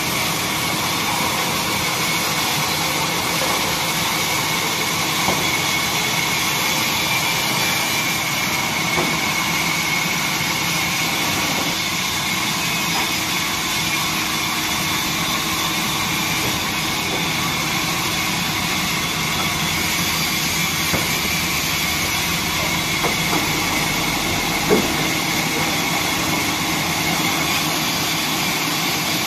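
Horizontal log band saw mill running steadily, its motor and band blade giving a constant mechanical drone with a faint high whine. A few light knocks sound over it, the sharpest about 25 seconds in.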